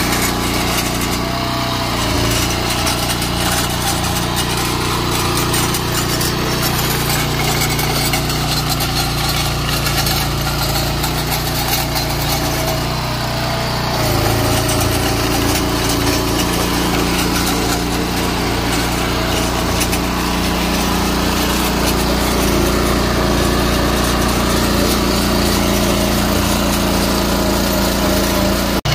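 Small gasoline engine of a Barreto walk-behind trencher running steadily under load as its digging chain cuts a trench through hard clay and rock. The engine's tone shifts about halfway through.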